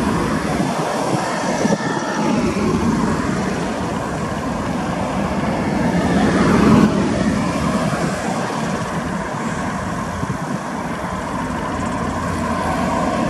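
KiwiRail diesel-electric locomotive running light at walking pace: a steady diesel engine drone with wheel and rail noise. It grows louder toward the middle, then eases off.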